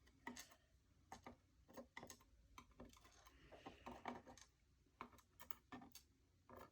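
Faint, irregular light clicks and taps, about two a second, of small brass and steel lock pins and parts from a disassembled padlock core being handled on a work surface.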